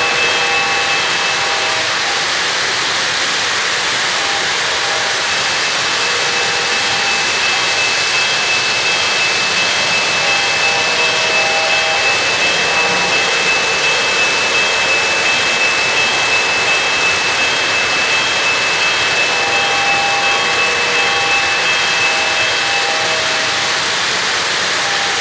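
Several O-gauge three-rail model trains running around the layout: a steady rolling roar of wheels on track, with a thin high whine through most of it and short horn-like toots that come and go several times.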